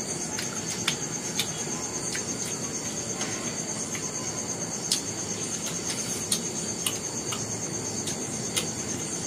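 An insect trilling steadily at a high pitch, with a fast, even pulse. Over it come several sharp crunches as flaky puff pastry is bitten and chewed.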